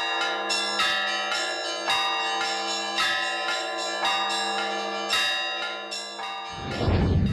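Orthodox church bells rung by one bell-ringer: small bells struck in a quick, uneven rhythm over the sustained hum of a larger bell. The ringing cuts off abruptly near the end, followed by a loud low rumble.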